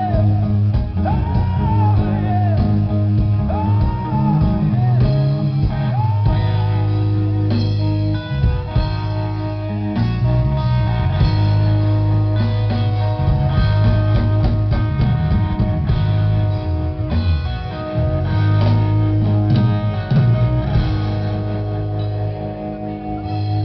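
Blues-rock band playing live through a festival PA: electric guitar, bass and drum kit, heard from within the crowd.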